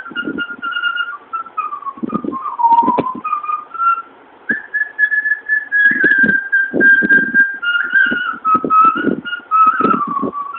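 A woman whistling a melody by mouth, long held notes sliding from one to the next, with a brief pause about four seconds in. Short low sounds come and go beneath the tune.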